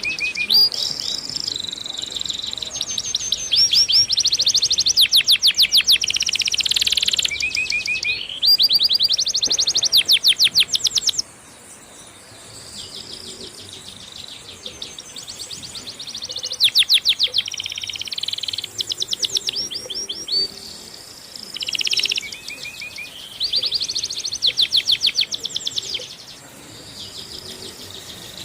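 Many birds chirping and trilling at once, a busy overlapping chorus of fast, high trills that swell and fade in bursts, louder in the first part.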